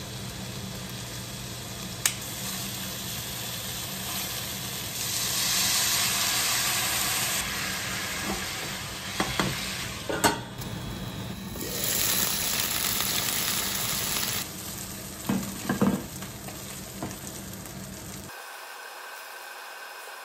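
Food sizzling as it fries in a pan, swelling louder twice for a few seconds, with a few clicks and knocks of a utensil against the pan as it is stirred.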